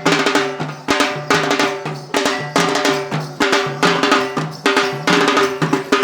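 Rhythmic drum-led music, with sharp drum strokes coming several times a second over held pitched tones.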